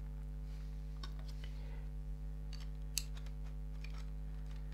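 Faint small plastic clicks and handling noise from a camcorder body being turned and fiddled in the hands, with one sharper click about three seconds in, over a steady low hum.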